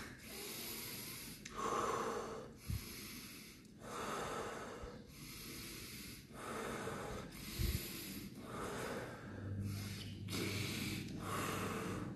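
A man breathing deep and forcefully in and out, in a steady rhythm of separate breaths: a pranayama round of deep breathing that leads into a breath hold.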